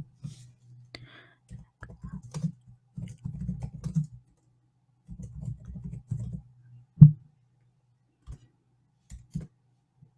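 Typing on a computer keyboard: two quick runs of keystrokes, then a few separate clicks, one of them louder about seven seconds in.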